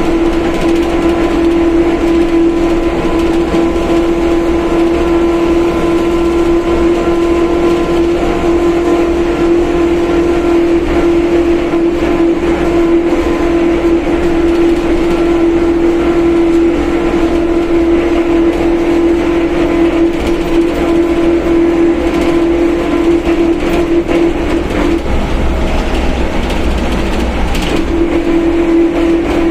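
The rear differential of a Mercedes-Benz OF1721 BlueTec 5 bus whines loudly at one steady pitch over the running and road noise. The whine drops out for a couple of seconds near the end, then comes back.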